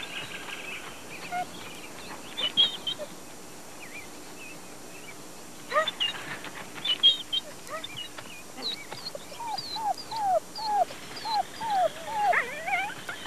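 Wolves whimpering: scattered high squeaks, then a run of short, falling whimpers about two a second through the last few seconds, as an adult wolf and a young pup meet.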